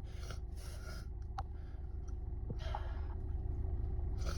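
Car engine idling with a steady low hum heard inside the cabin, with a few short breath sounds after a bout of sneezing and a single sharp click about a second and a half in.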